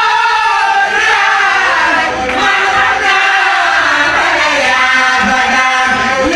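Loud group singing: a male lead voice through a microphone with a chorus of men and women singing along, unbroken throughout.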